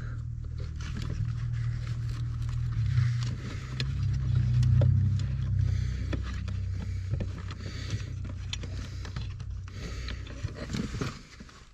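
Scattered metal clicks, knocks and scrapes as a brake pedal is hung on its pivot and its return spring fitted, over a steady low hum.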